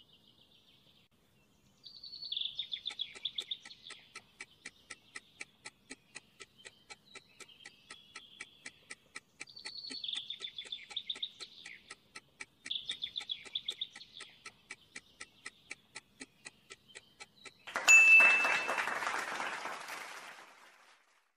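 Quiz countdown timer ticking rapidly and steadily, with birds chirping in short phrases over it. Near the end the ticking stops and a loud burst of noise with a brief ringing tone sounds and fades over about three seconds, marking the answer reveal.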